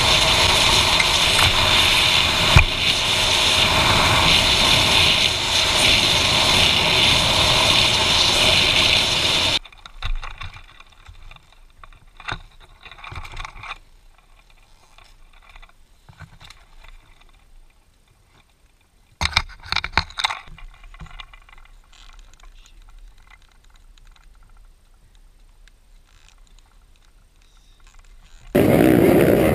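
Wind rushing over a helmet camera on a dirt bike riding at road speed, with one sharp knock about two and a half seconds in. The rush cuts off suddenly about ten seconds in, leaving quiet broken by scattered small knocks and handling noises.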